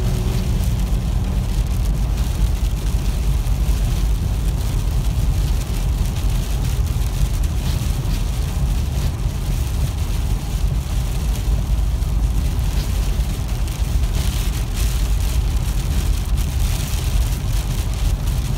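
Steady road and tyre rumble inside a moving car, with wind-blown rain striking the windshield and body as many small hits. The hits come thicker a few seconds before the end.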